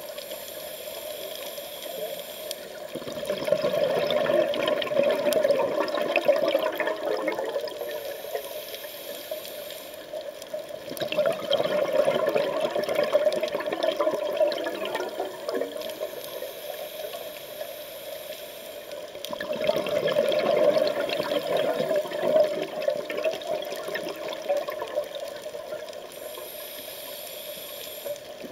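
Scuba diver breathing through a regulator underwater: a quieter hissing inhale, then a long rush of exhaled bubbles, repeating about every eight seconds, three exhales in all.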